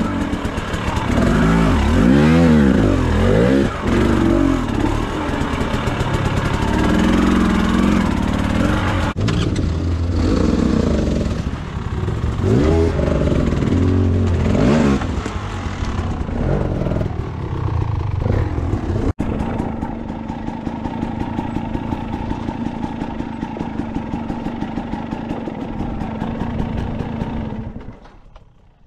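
Two-stroke enduro dirt bike engine heard from the rider's helmet, revving up and down again and again as it picks its way over rock. About two-thirds of the way through it settles to a steady pitch, then fades out at the very end.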